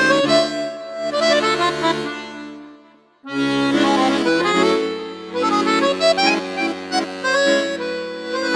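Background music led by an accordion: a melody over held chords, fading out briefly about three seconds in and then starting again.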